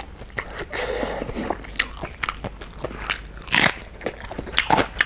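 Close-miked eating: a raw cabbage leaf torn off and bitten, with crisp crunching bites and chewing clicks, the loudest crunch about three and a half seconds in.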